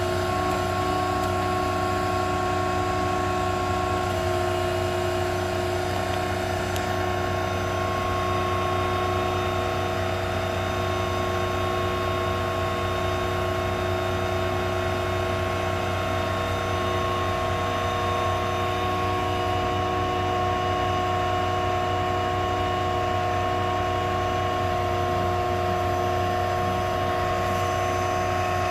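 Auto Crane service-truck crane running while its boom is raised: a steady mechanical whine over a low hum from the crane's drive and the truck, unchanging in pitch throughout.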